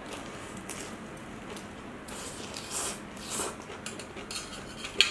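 People slurping and chewing noodles held in chopsticks, with a few short slurps in the middle and a short sharp click near the end.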